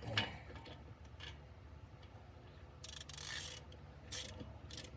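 Small metal parts clicking and clinking, as washers and a lug nut are handled to set up pulling a new wheel stud through the hub. There are a few sharp clicks and a short scraping rattle about three seconds in.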